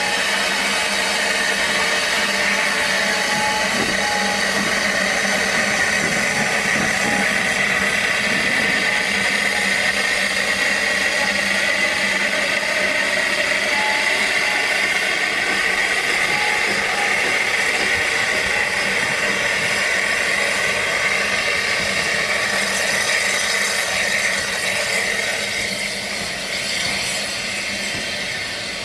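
Manning Wardle-type 2-6-2T narrow-gauge steam locomotive hissing steam steadily as it moves slowly. The hiss eases off a little in the last few seconds.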